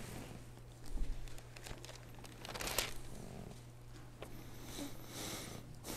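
Thin Bible pages being turned by hand: a few soft rustles, the clearest a little under three seconds in, with a light knock about a second in, over a faint steady hum.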